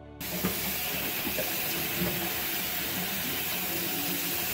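Tap water running in a stream onto an 8-inch telescope primary mirror and splashing into a stainless steel sink. It is a steady, loud hiss that starts abruptly just after the beginning.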